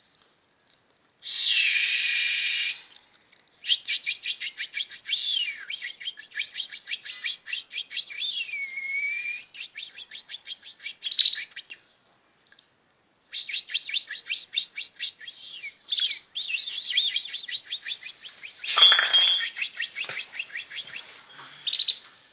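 Small birds chirping in quick runs of short notes, roughly eight to ten a second, mixed with sliding whistled notes. A harsh, noisy call comes about a second and a half in, there is a brief pause past the midpoint, and a short louder rustling burst comes near the end.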